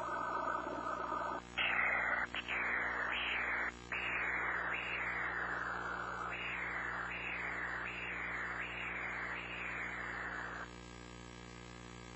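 Pulsed-wave Doppler ultrasound audio of blood flow: for the first second and a half a steady rushing, then a rhythmic whooshing pulse with each heartbeat, about one every three quarters of a second. Each pulse starts sharply and falls in pitch. The pulsing stops abruptly near the end, leaving a faint hum.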